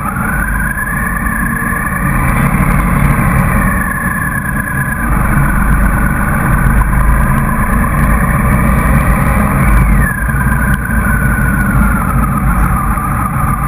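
Motorcycle riding at highway speed: the engine runs with a whine that climbs over the first few seconds, drops about five seconds in, and falls again after about ten seconds as the throttle changes. It sits over a heavy, steady rumble of wind on the microphone.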